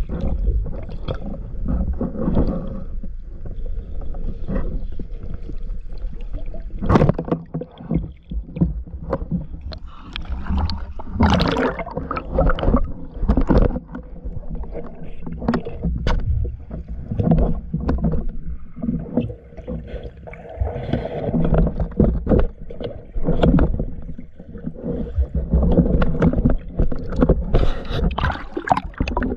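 Water noise heard underwater as a spearfisher swims with a speargun: muffled sloshing and gurgling with scattered knocks, two sharper ones about a third of the way in, and busier splashing near the end as he comes up to the surface.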